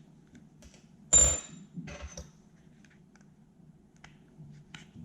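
Metal parts of a Glock 19 Gen 5 pistol being handled during field-stripping: one sharp metallic clink with a brief high ring about a second in, then a few lighter clicks and small ticks.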